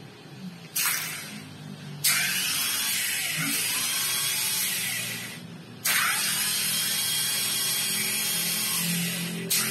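Starter motor with a repaired carbon brush holder, bench-tested on a car battery and spinning free under power. There is a short burst about a second in, then two runs of several seconds: the first starts suddenly and fades off, the second cuts in abruptly and runs steadily.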